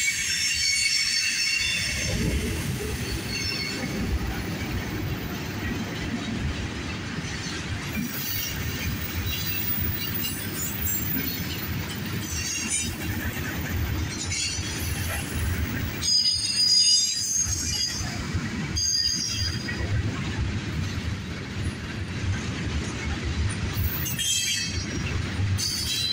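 Train's cars rolling past on the rails with a steady low rumble. The wheels squeal high-pitched near the start, again about two-thirds of the way through and near the end.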